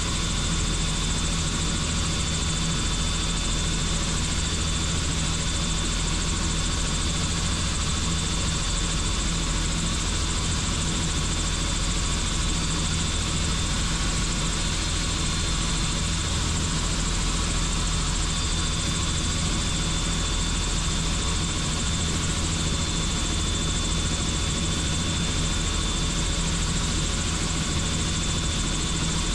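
Helicopter in flight, its rotor and turbine engine running steadily, with a thin high-pitched whine over a low, even thrum.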